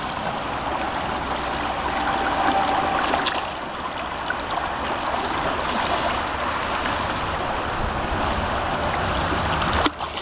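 River water running steadily, with a brief sharp click near the end.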